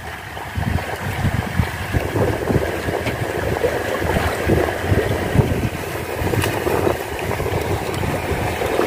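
Wind buffeting the microphone, with sea water washing below: a steady, fairly loud noise with an irregular low rumble.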